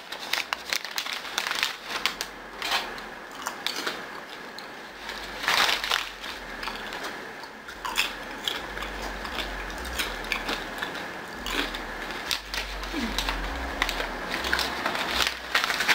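Crinkling of a plastic bag of kettle corn being handled, with kettle corn being chewed: an irregular run of sharp crackles and clicks.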